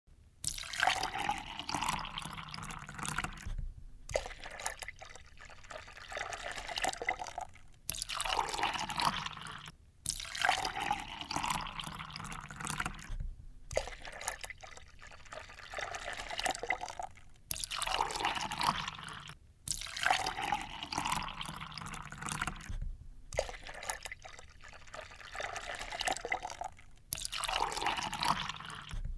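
Water being poured into a container, splashing and gurgling, in a series of separate pours of a few seconds each with short breaks between them.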